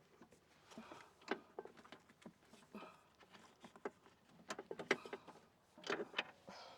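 Irregular light metallic clicks and taps of a hand wrench being fitted onto and worked against bolts, with a few louder clinks near the end.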